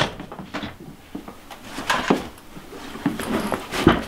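A closet door opening and a backpack being taken out and handled: a string of short knocks, clicks and rustles, the sharpest knock just before the end.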